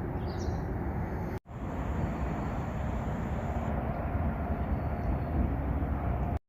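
Steady low rumble of road vehicle noise. It drops out abruptly for an instant about a second and a half in, and again just before the end.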